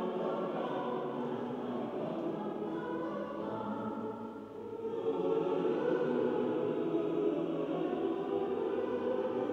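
Chamber choir singing held chords while walking in procession up the church aisle; the singing dips briefly about four and a half seconds in, then comes back louder.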